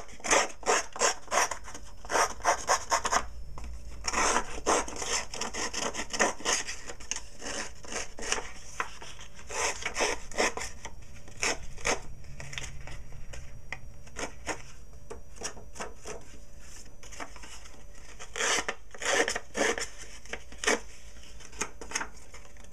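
Handheld edge-distressing tool scraped along the edges of cardstock strips, roughing up the paper edges. It comes in runs of quick scraping strokes, several a second, with short pauses between runs.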